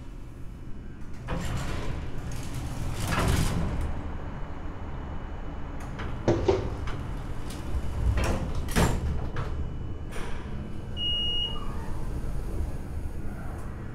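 Doors sliding and clunking several times over a low steady rumble, with a short high beep about eleven seconds in.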